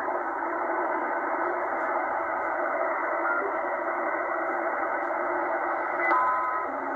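Tecsun H-501X shortwave receiver in upper sideband being tuned across the 5.1 MHz utility band: steady static hiss through the narrow sideband filter, with a few brief whistling tones from passing signals, most of them near the end.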